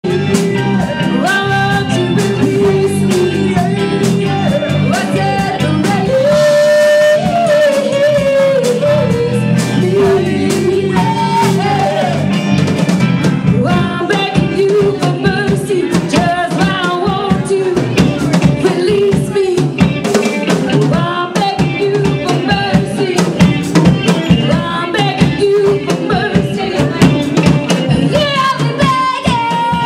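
Live band playing: a woman singing into a microphone over electric guitar and a drum kit, with a steady beat.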